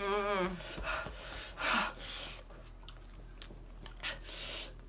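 A short wavering groan, then several sharp, hissing breaths through the mouth. This is a teenager reacting to the burning sourness of a mouthful of Warheads sour candy.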